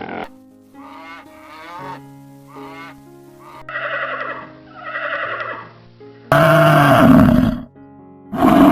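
A run of farm animal calls over background music: several short, wavering calls in the first few seconds, two longer calls around four to five seconds in, then a loud call about six seconds in and another near the end.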